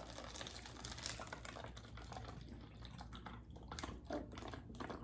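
Liquid being poured through a funnel into a plastic bottle: a faint, steady trickle with many small ticks.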